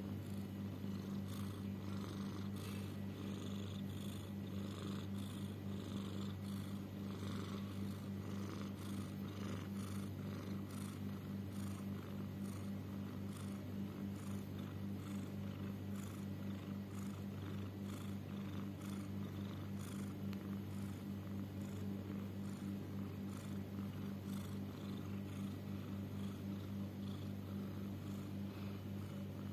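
Domestic cat making a steady, rumbling, purr-like breathing noise, with a faint high rasp on each breath at a steady pace of a little more than once a second. The owner is unsure whether it is snoring, wheezing or trouble breathing.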